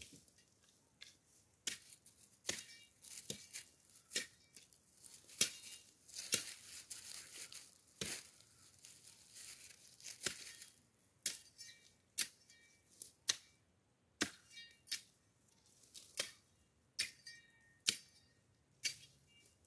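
Repeated chopping strikes of a long-handled hand tool into dry brush and ground, about one or two a second at an uneven pace, with the crackle and tearing of dry vegetation being cut and dragged; a longer spell of rustling comes near the middle.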